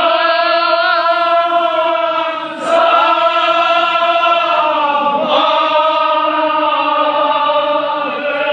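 Crowd of male mourners chanting a Kashmiri marsiya (elegy) in unison, holding long notes, with a short break about two and a half seconds in and another about five seconds in.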